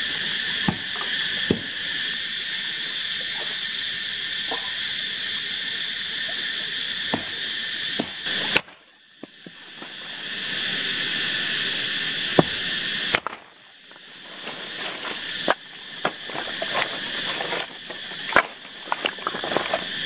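A steady, high insect chorus buzzing in the forest, with sharp wooden knocks and cracks as sticks are split with a hatchet and handled, coming thick and fast in the second half.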